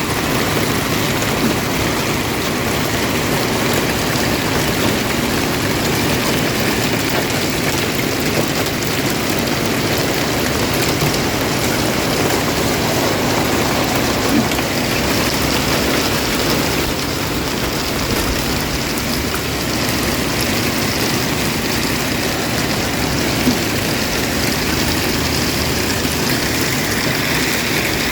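Heavy monsoon rain beating on a parked vehicle's roof and windows, heard from inside the cabin: a dense, steady hiss with a few sharper hits, about fourteen and twenty-three seconds in.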